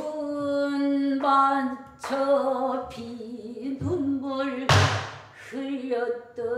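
A solo voice singing long held notes with a wavering, vibrato-laden pitch, in a traditional Korean style, with one loud drum stroke a little under five seconds in.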